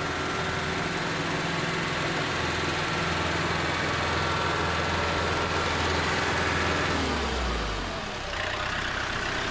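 A John Deere compact utility tractor's diesel engine runs as the tractor drives up, with a steady whine over the engine. About seven seconds in, the engine note drops as the tractor slows and stops, then it idles.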